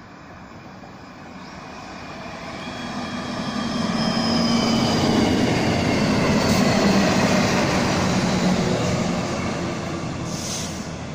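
Two coupled Stadler Regio-Shuttle RS1 diesel railcars approaching and passing at speed. The rumble of engines and wheels on the rails grows, is loudest about halfway through, then fades, with a high whine whose pitch drops slightly as the train goes by.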